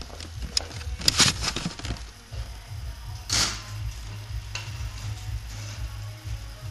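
Muffled music with a deep bass line coming through from another room, with a few sharp clicks and a short rustle of handling noise on the microphone.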